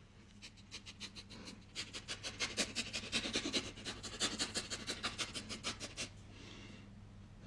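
A person sniffing a dog's fur and head in quick short sniffs, imitating a dog, several a second, getting louder about two seconds in and stopping about six seconds in.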